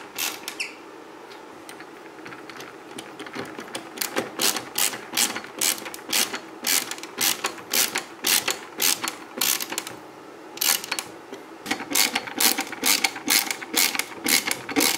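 Ratcheting screwdriver clicking as it drives small screws, in runs of sharp clicks about two or three a second with short pauses between screws.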